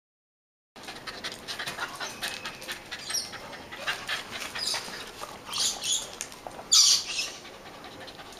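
Two small wire-haired terriers making excited sounds up close, with many small clicks and several short high-pitched bursts, the loudest a little before the end. The sound begins about a second in.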